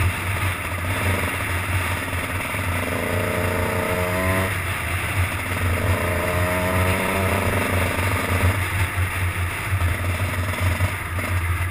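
Dirt bike engine running under way, its pitch rising as it accelerates, dropping suddenly about four and a half seconds in at a gear change, then rising again and holding steady.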